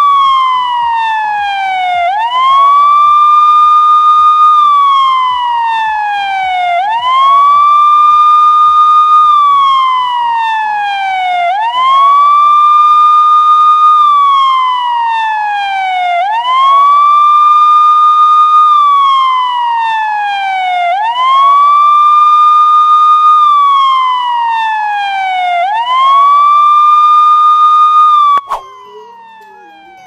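Police car siren wailing in a slow cycle: the pitch rises quickly, holds high for about two seconds, then slides slowly down, repeating about every four and a half seconds, six times over. It cuts off abruptly near the end.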